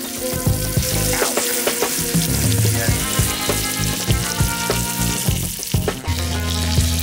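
Steaks searing in butter in a cast-iron skillet over campfire coals, sizzling with a steady hiss and many fine crackling pops. The level dips briefly near the end.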